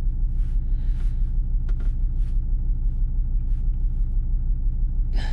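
Car diesel engine idling steadily with an even low pulse, held at a fast tick-over of about 1500 rpm, which the owner puts down to stored faults for low fuel pressure and the intake air temperature and mass airflow sensors.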